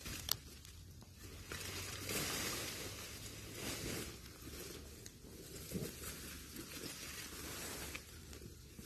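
Rustling and crunching of dry leaf litter and brush, coming and going irregularly, with a sharp click about a third of a second in.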